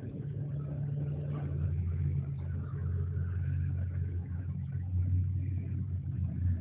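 A low, steady engine rumble like that of a nearby motor vehicle, growing a little louder after the first second or two.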